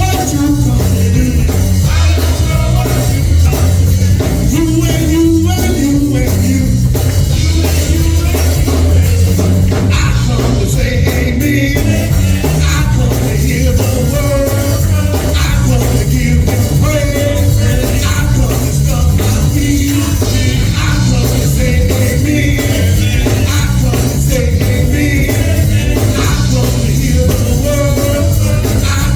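Church worship music played by a live band with drum kit and bass, with a steady beat and singing.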